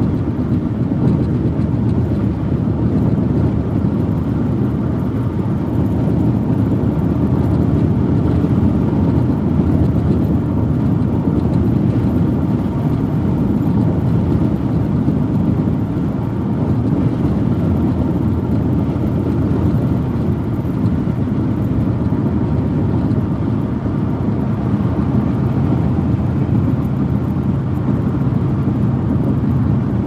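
Steady low rumble of road and tyre noise inside a car's cabin at freeway speed.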